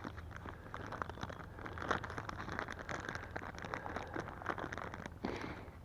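Water splashing and pattering over hands as they are rinsed, an irregular crackly patter.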